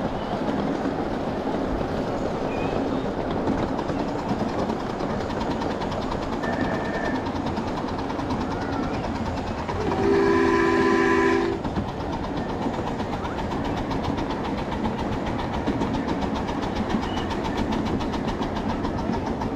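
Steady running noise of a 7½-inch gauge live steam train moving along the track, with the locomotive's whistle blowing one loud, several-note blast of about a second and a half about halfway through.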